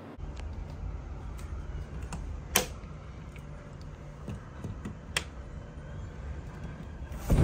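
Wind buffeting a phone's microphone on a high-rise balcony as a storm blows in, a steady low rumble, with a few sharp clicks scattered through it, the loudest about two and a half seconds in.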